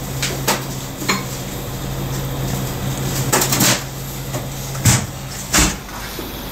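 Clatter of dishes and utensils: a series of short sharp knocks and clinks, the two loudest near the end, over a steady low hum that stops about five seconds in.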